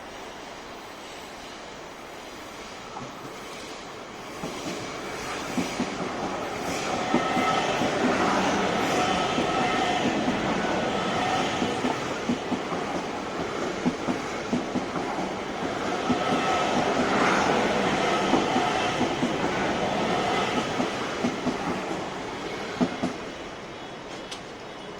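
A train passing close by at a level crossing, its wheels clacking over the rail joints; it grows louder about four seconds in, stays loud for most of the pass, and fades near the end.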